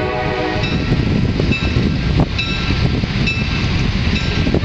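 Diesel passenger train rolling slowly: a steady rumble of engine and wheels on rail, with faint short squeaks now and then and a sharp knock about two seconds in and again near the end.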